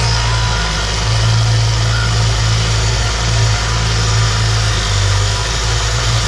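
Electric power tool motor running steadily with a loud, even hum while flattening the edges of a wooden workpiece.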